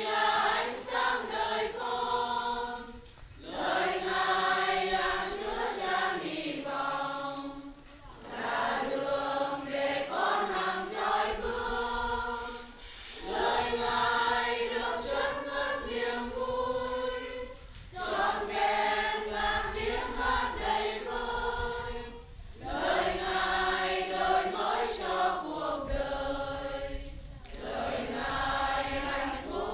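Choir singing a hymn in sustained phrases of about four to five seconds, each followed by a short breath-break.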